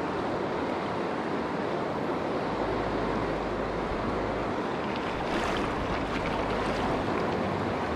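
Fast river water rushing over a shallow riffle, a steady even hiss, with a low rumble coming and going.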